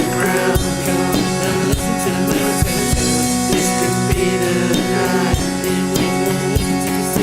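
Live indie-folk rock band playing an instrumental passage: guitars over a steady drum-kit beat, with a kick about every half second.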